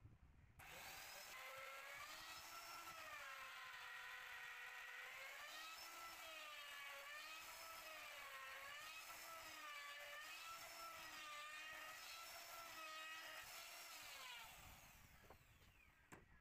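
Electric power tool's motor running with a whine whose pitch wavers up and down about once a second, starting abruptly just after half a second in and winding down near the end.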